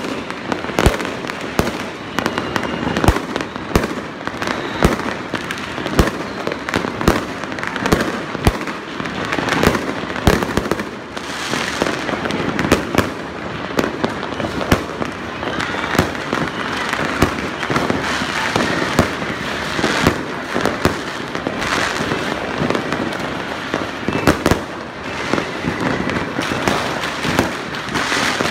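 Many fireworks and firecrackers going off at once: a continuous crackle with sharp bangs several times a second, some much louder than others.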